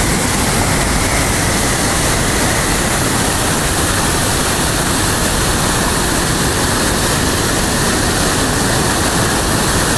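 Loud, steady rush of a waterfall, an even roar of falling water with no breaks.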